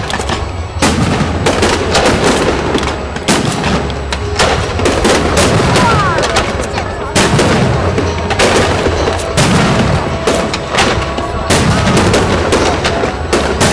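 Aerial fireworks shells bursting in a rapid, continuous string of loud bangs.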